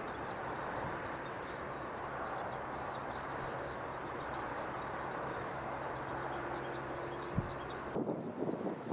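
Small birds chirping and singing continuously over a steady low hum, with a short thump near the end. About a second before the end the birdsong cuts off and wind rumbles on the microphone.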